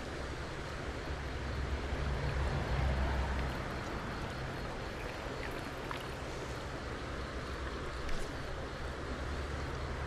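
Stream water running, a steady rushing hiss, with a low rumble underneath that swells about two to three seconds in.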